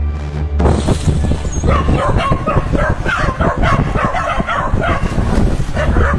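An animal giving a rapid series of short, dog-like yelps, about three a second, starting a little under two seconds in.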